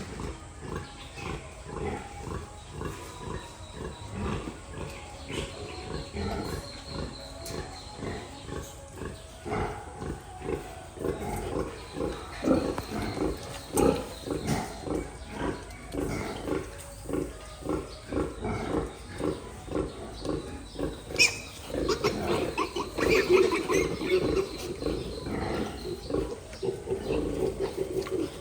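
Pigs grunting in a steady rhythm, about two low grunts a second, getting louder and busier about two-thirds of the way through.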